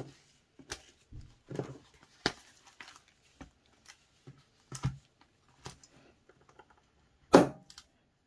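Hands handling a stack of plastic A7 pockets and a binder wallet: scattered clicks, taps and rustles, with one loud sharp snap near the end as the wallet's metal binder rings are opened.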